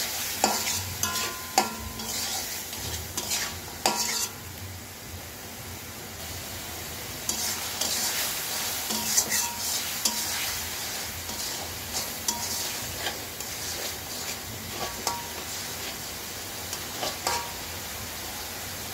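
Metal spatula stirring onions, tomatoes and spices frying in oil in a steel karahi: a steady sizzle with frequent scrapes and clinks of the spatula against the pan, busiest in the first four seconds. This is the koshano stage, the spices being fried down in the oil.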